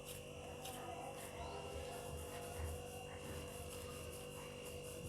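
Quiet room tone: a steady electrical hum with a thin high whine above it.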